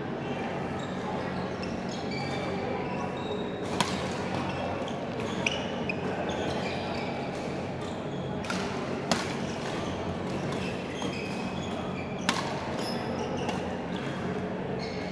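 Badminton rackets striking a shuttlecock during a doubles rally, four sharp cracks a few seconds apart. Short high shoe squeaks on the synthetic court mat come in between, over a steady low hum from the hall.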